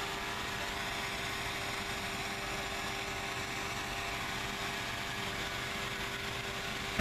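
Hot-air balloon's propane burner firing steadily into the envelope during hot inflation, a continuous rushing roar, with a steady mechanical hum underneath.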